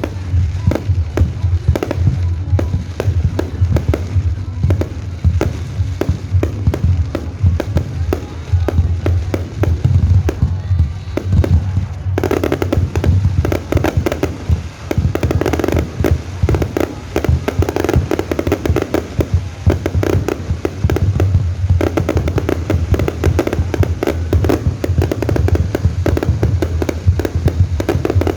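Fireworks display going off continuously, with dense rapid bangs and crackles and deeper booms, getting fuller about halfway through. Music plays underneath.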